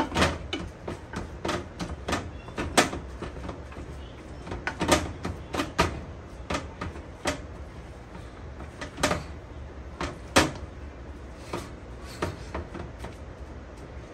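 A spatula knocking and scraping against a stainless steel pan as ground beef is stirred, making irregular clicks, with a few louder knocks.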